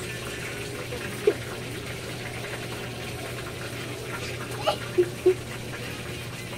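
Steady low hum with faint background hiss, broken by a few short sounds: one about a second in and three close together near the end.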